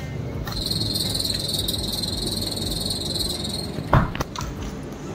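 A steady high-pitched trill lasting about three seconds, then a sharp knock about four seconds in, with a smaller one just after, as the glass door of a drinks fridge swings shut.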